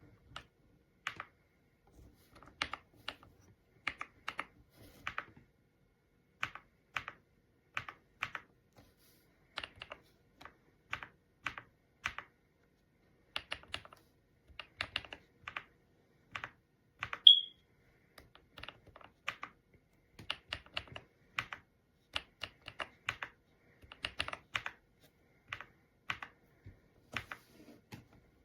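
Typing on a Kisnt 85-key mechanical keyboard: irregular short key clicks coming in small bursts, with one much louder, sharp, high-pitched click about two-thirds of the way through.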